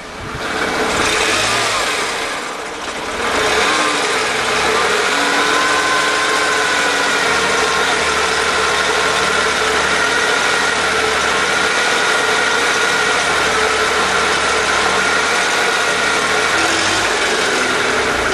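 1998 Mercedes E320 engine held under heavy throttle while misfiring on all cylinders, with a rattle like marbles in a tin can that the owner suspects comes from plugged catalytic converters. It climbs in the first second, dips briefly, then holds a steady strained pitch from about three and a half seconds on.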